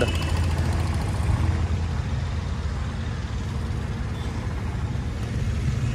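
New Holland 3630 Super Plus tractor's diesel engine idling steadily, a low even rumble.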